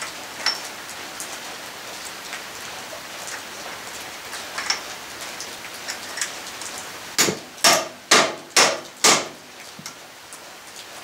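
A hammer strikes metal at the driveshaft's rear U-joint and axle pinion yoke five times in quick succession, about half a second apart, with a few faint clinks before.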